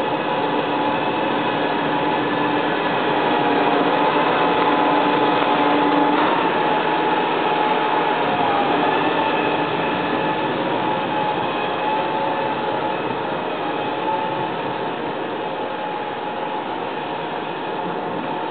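Diesel engine of a large John Deere tractor running hard as it drives back and forth through a deep snowdrift. The engine note shifts about six seconds in, after its loudest stretch, then eases as the tractor moves away.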